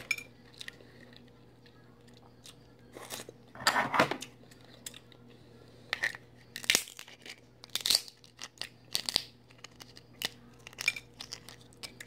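Close-up eating sounds: cooked Dungeness crab shell cracking and snapping as it is picked apart by hand, with chewing and a few louder crunching bursts, the strongest about four seconds in, over a faint steady hum.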